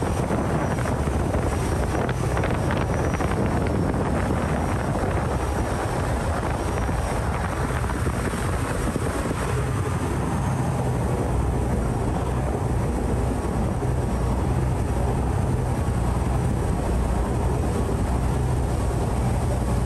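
Loud, steady engine of a Saen Saep canal passenger boat running under way, with wind and rushing water. The engine's deep note grows stronger about halfway through.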